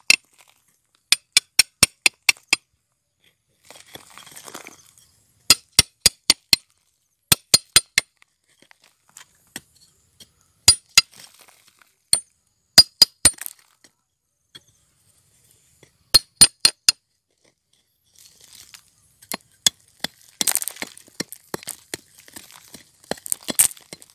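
A hand digging tool striking rock and packed soil in quick bursts of four or five sharp, ringing clinks, a few seconds apart. In the last few seconds the strikes come faster, with scraping and crumbling dirt between them.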